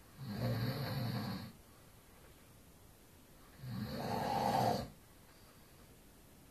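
A man snoring: two loud snores about three seconds apart, each lasting a little over a second.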